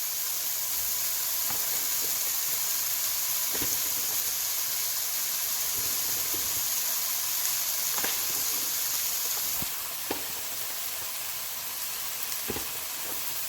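Chopped vegetables frying in a pan with a steady sizzle, broken by a few light knocks of a utensil against the pan. The sizzle drops a little about ten seconds in.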